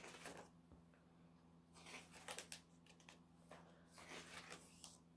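Pages of a spiral-bound album photo book being turned by hand: faint paper rustling, with soft swishes near the start, about two seconds in and about four seconds in.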